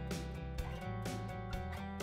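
Instrumental music with held chords over a steady beat of about two strokes a second.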